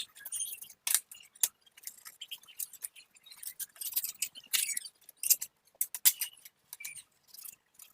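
Kitchen knife cutting and scraping herring fillets on a cutting board: a string of short, irregular, high scrapes and clicks.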